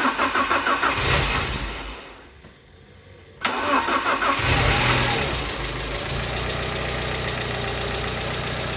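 Alfa Romeo GTV's Twin Spark four-cylinder engine cranking on the starter without catching, then cranked again about three and a half seconds in. It catches, revs briefly and settles into a steady idle. This is the first start after a new cam belt and service: the variator is quiet, and a light tapping from hydraulic lifters still dry of oil after long standing is expected.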